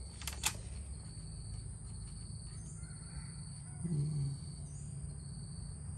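Steady chirring of crickets over a low hum, with two small clicks of the engine being handled near the start and a brief low call about four seconds in.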